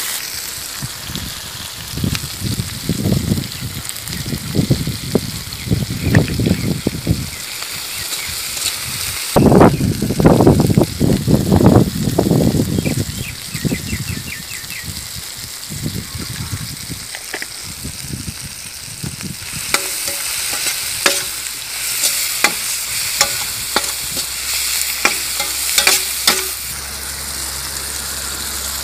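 Onions and tomatoes sizzling in a hot metal wok while a metal spatula stirs and scrapes them in repeated strokes, heaviest in the first half. Later comes a run of sharp taps over the steady sizzle.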